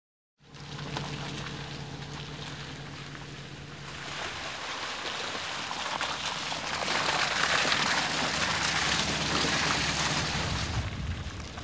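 Bentley Bentayga SUV driving off-road: a steady low hum of the car for the first few seconds, then a rising rush of tyre noise on a muddy track, loudest as the car passes close in the second half.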